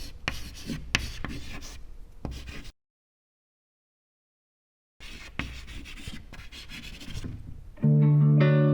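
Scraping and rubbing with light knocks and clicks, cut by about two seconds of dead silence; a guitar melody begins near the end.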